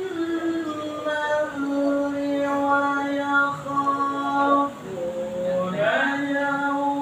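Melodic Quran recitation (tilawah) by a single male voice, chanted in long drawn-out notes that step between pitches, with a sweeping rise in pitch about six seconds in.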